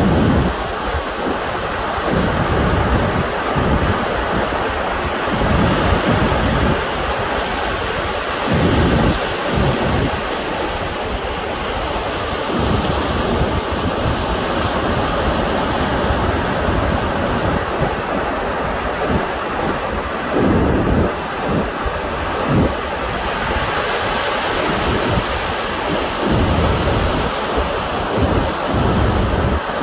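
Wind buffeting the microphone in irregular gusts, over a steady rush of ocean surf.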